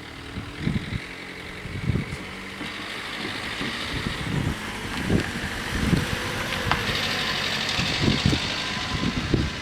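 Road vehicle engine running at the level crossing, its tyre and engine noise growing from about three seconds in, with repeated wind buffets on the microphone.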